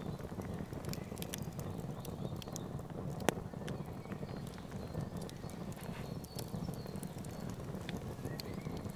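Open wood fire crackling, with scattered sharp pops over a steady low rumble; one pop about three seconds in is louder than the rest.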